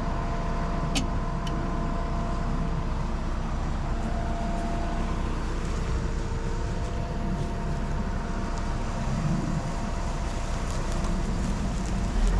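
Combine harvester running steadily in soybeans, a continuous machine drone with several steady tones in it. Two short ticks come about a second in.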